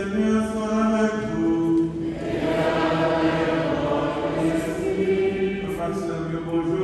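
Congregation singing a slow liturgical chant, with long held notes.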